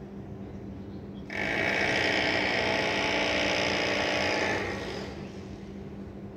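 A loud, steady buzz starts suddenly about a second in, holds for about three seconds and then fades out, over a constant low city hum.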